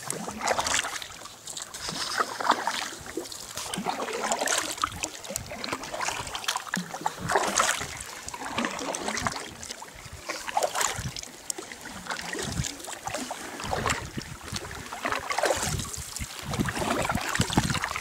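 Kayak paddle strokes in calm water: the blade dips, splashes and drips, swelling and fading every couple of seconds.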